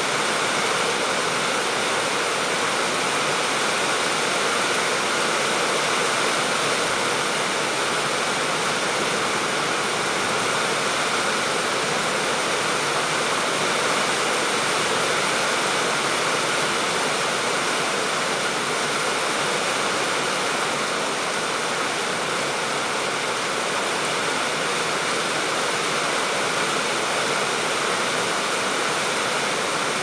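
Steady rain falling on tiled roofs and trees: an even hiss that keeps the same level throughout, with no single drops or gusts standing out.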